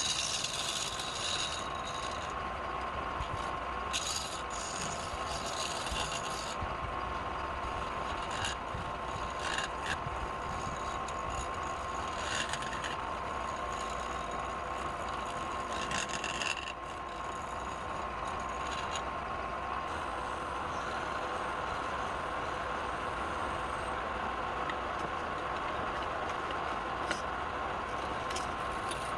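Wood lathe running with a steady hum and whine, with short bursts of scraping against the spinning wood during the first half and a couple near the end.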